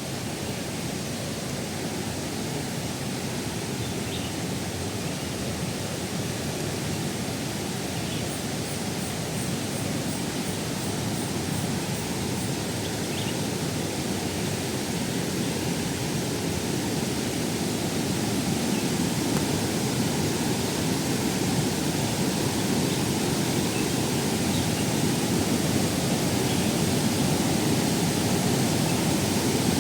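Waterfall pouring and splashing: a steady rushing of water that slowly grows louder.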